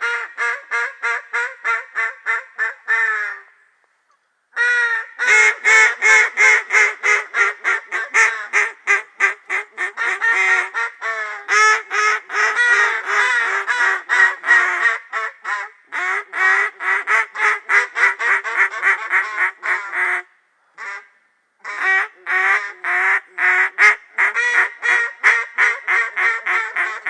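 Duck call blown in long runs of rapid quacks, about four to six a second, with two short breaks, calling to ducks flying close by.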